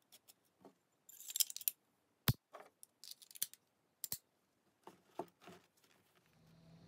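Radom P-64 pistol being handled and dry-fired: a rattling metal clatter about a second in, then a sharp click at about two seconds and another at about four, typical of the hammer falling. Softer knocks follow near the end.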